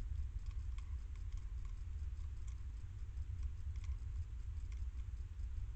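Hedgehog eating from a metal bowl: faint, irregular clicks and crunches of chewing and food knocking in the bowl, over a steady low hum.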